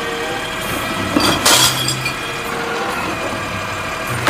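Automated side-loader garbage truck running while its hydraulic arm tips a wheeled trash cart into the hopper; about a second and a half in, the cart's contents fall in with a sudden loud crash and clatter.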